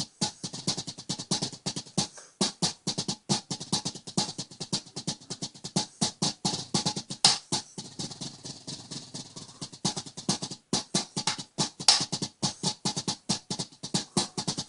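Drumsticks playing a homemade mesh snare drum head: a fast run of short, dry strokes, several a second, breaking off briefly twice.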